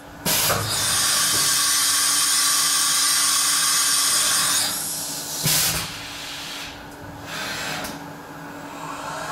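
Syil X7 CNC milling machine with a loud steady hiss of compressed air for about four seconds, then a short sharp blast about five and a half seconds in, over a steady low machine hum. The hiss then falls away to a quieter one.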